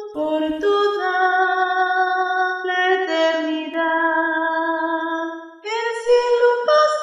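A soprano voice singing a slow hymn melody in long held notes over instrumental accompaniment, the notes changing every second or so.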